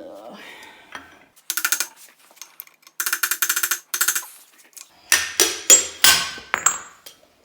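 A hammer tapping on a tight-fitting part of a VW Type 1 1600 engine to knock it loose. There are three quick runs of light, ringing metal taps, then about five heavier blows near the end.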